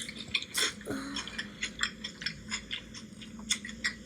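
Close-up chewing with a mouthful of food: irregular wet mouth clicks and smacks, many to the second.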